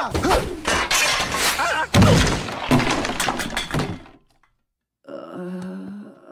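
Cartoon crash sound effects: a body slamming into a wall, with plaster breaking and objects smashing and clattering, and a yell mixed in. The hardest hit comes about two seconds in. The crashing stops short after about four seconds, and after a moment of silence a quieter pitched sound starts.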